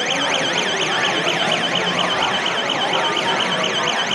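Electronic alarm siren of a student-built smart warning system, warbling quickly up and down in pitch about four times a second without a break.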